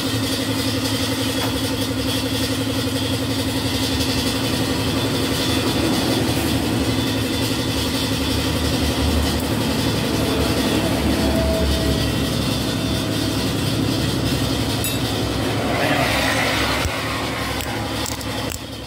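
An engine running steadily at an even pitch, a constant hum, with a rush of noise about sixteen seconds in before the level eases slightly.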